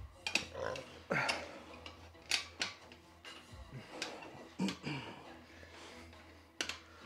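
Calf-raise machine clanking, metal on metal, about six separate knocks spread unevenly through the last reps of a set. A couple of short grunts from the lifter come in between.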